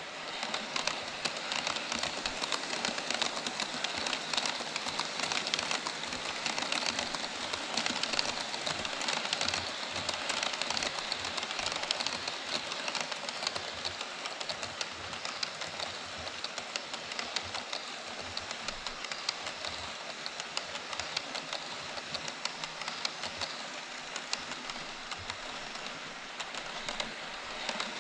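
HO-scale model freight train, an EF66 electric locomotive hauling Koki 104 container wagons, running past on KATO Unitrack: a steady, dense clatter of the small metal wheels on the rails. It is louder in the first half and eases toward the end as the wagons run by.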